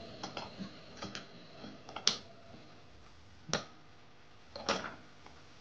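Small plastic clicks and taps from jumper-wire connectors being handled and pushed onto an Arduino Uno's header pins. The clicks come at irregular moments, with the sharpest about two, three and a half, and nearly five seconds in.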